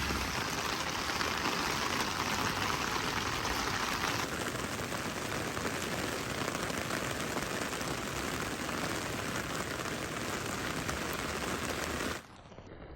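Steady rain falling, an even dense hiss of drops; it eases slightly about four seconds in and cuts off abruptly near the end to a much quieter background.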